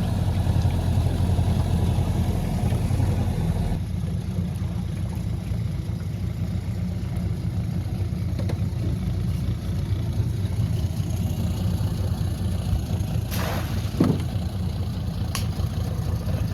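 Small boat's outboard motor running steadily, easing off about four seconds in. Near the end there is a short rush of noise and a thump, then a click.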